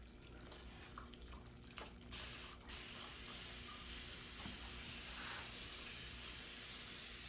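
Faint water from a paludarium's small waterfall: a few soft drips, then a steady trickle starting about two seconds in.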